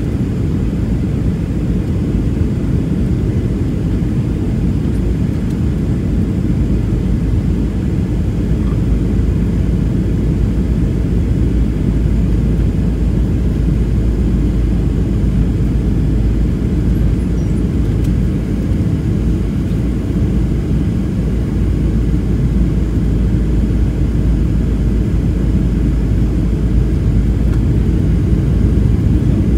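Steady low cabin roar of a Boeing 737-700 in flight, heard from a window seat over the wing: engine and airflow noise from its CFM56-7B turbofans, growing slightly louder toward the end.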